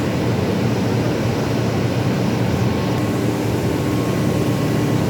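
Absorbent cotton processing machine running steadily, a constant mechanical hum with a few steady tones over a dense noise.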